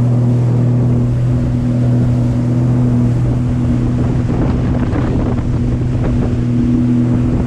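The 155-horsepower engine of a Sea-Doo Fish Pro personal watercraft runs at a steady cruise with a constant low drone. Wind buffets the microphone and the spray and wake rush along the hull.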